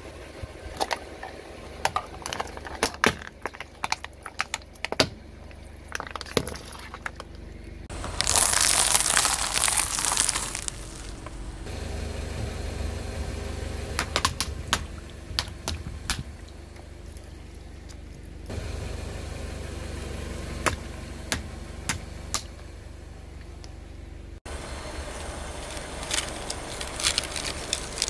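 A car tyre rolling over and crushing objects on concrete, with the car's engine running low in the background: a run of sharp cracks, snaps and pops, and a few seconds of loud hissing rush about a third of the way in.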